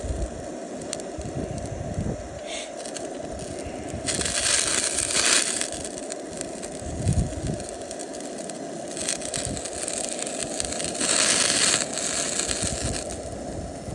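Offal and meat sizzling and crackling on a wire grill over a gas burner, over a steady hiss. The sizzle swells into louder spells about four seconds in, again around nine seconds, and once more around eleven seconds.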